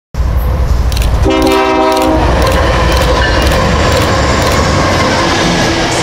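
Diesel freight train running with a steady low rumble. A locomotive horn gives one short blast about a second in, and the wheels click at an even pace over rail joints.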